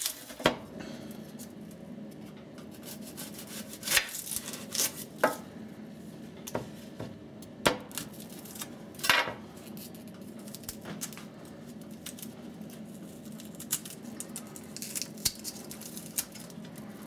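A kitchen knife tapping and scraping on a plastic cutting board while an onion's papery skin is peeled off, in scattered irregular clicks.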